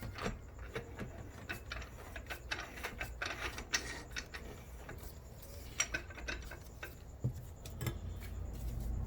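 Light, scattered clicks and taps of metal automatic-transmission parts being handled, such as clutch plates and drum components, over a low steady hum.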